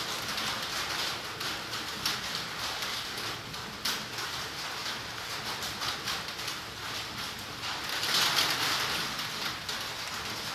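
Outdoor background hiss with many small scattered ticks, swelling louder about eight seconds in.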